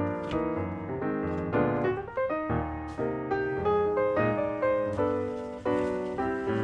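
Background piano music: a stream of struck piano notes and chords, each sounding and fading in turn.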